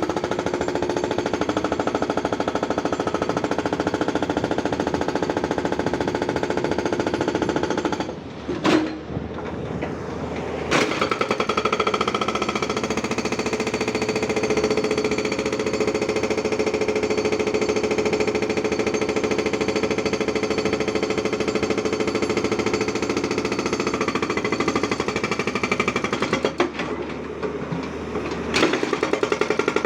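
Hydraulic rock breaker on a Tata Hitachi 200 excavator hammering in rapid, continuous blows, with the excavator's engine running underneath. The hammering stops briefly twice, about eight seconds in and again near the end.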